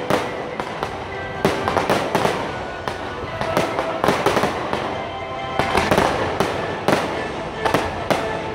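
Fireworks going off in rapid succession: a dense, irregular run of pops and bangs from launching and bursting shells and comets, with music playing underneath.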